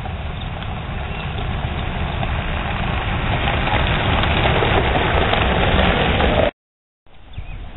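Chevrolet Silverado pickup truck driving past on a gravel road: engine and tyres on gravel, growing louder as it approaches and passes. Near the end the sound cuts out for about half a second.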